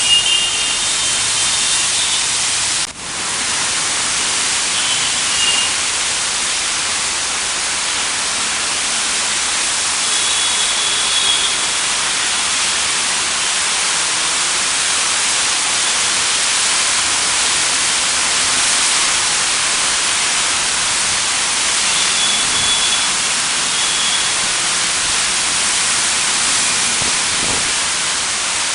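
Heavy rain and wet-road traffic making a loud, steady hiss, with a few faint, brief high tones now and then. The sound drops out for a moment about three seconds in.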